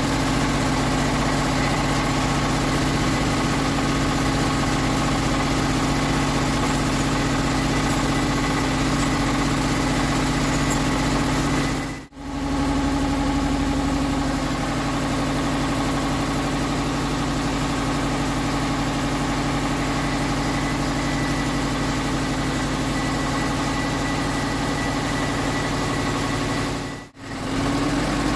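Metal lathe running steadily, a machine hum with a few held tones. It drops out briefly twice, about twelve seconds in and near the end.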